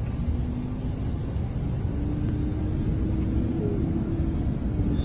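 Steady low rumble heard inside a vehicle driving past a burning bushfire, with a faint steady tone running through it from about two seconds in.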